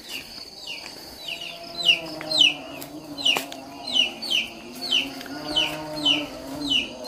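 Chickens peeping: a run of short, high, falling peeps about twice a second, starting a second or so in, with a single sharp click near the middle.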